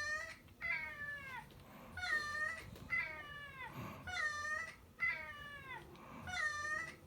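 Domestic cat meows repeating about once a second, seven short calls of much the same shape, mixing a pet cat with played cat sound effects.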